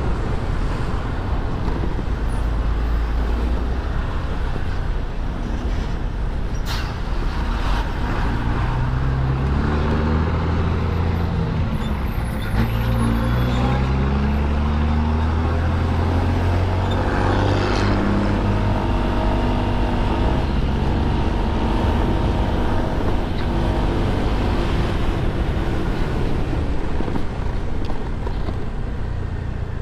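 Ride on a Honda SH150i scooter in dense city traffic: a steady low rumble of the running engine and road noise, with trucks and cars close by. In the middle stretch, engine pitch rises and falls several times as vehicles speed up and slow down.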